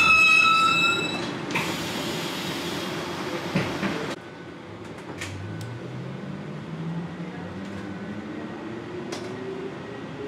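Inside a Lucerne NAW trolleybus on the move: a steady hiss over the running noise cuts off suddenly about four seconds in, then the electric traction motor's whine rises in pitch as the trolleybus picks up speed.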